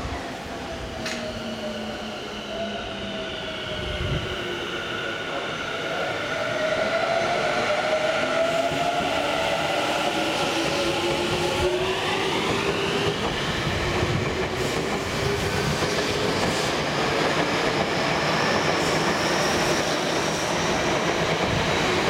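Tobu 50090-series electric train pulling away: the traction motors' inverter whine sets in as several tones climbing in pitch as it gathers speed, with a steeply rising tone about halfway through, over the rumble of the wheels on the rails, which grows louder after the first few seconds.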